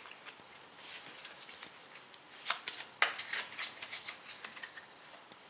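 A small deck of game cards being shuffled by hand: a run of quick card flicks and rustles, loudest about three seconds in.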